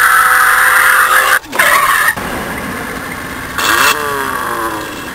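Remote-control car's onboard engine-sound simulator playing a loud high-revving engine sound that drops to a lower idle about two seconds in. Near the end a short rev blip falls away in pitch.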